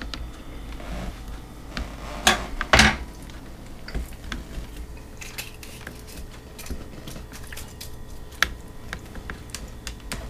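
A knife and hands working through a deep-fried whole chicken on a plastic cutting board: scattered light clicks and taps, with two louder noises about half a second apart a little over two seconds in.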